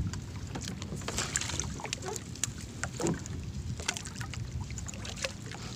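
Crab gillnet being hauled in by hand over the side of a small outrigger boat: water dripping and splashing off the net, with scattered light ticks and knocks over a steady low rumble.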